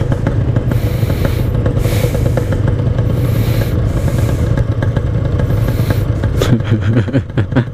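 Two-stroke motorcycle engine running steadily under way, with several passes of rushing hiss. Near the end the engine pitch swings up and down as it is revved.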